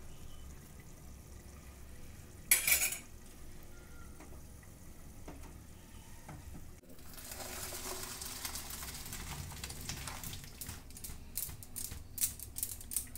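Boiled rice and its cooking water being poured from an aluminium pot into a plastic colander in the sink: an even rushing splash with small clicks and clatters from about seven seconds in, as the rice is drained. A short loud clatter of kitchenware about two and a half seconds in.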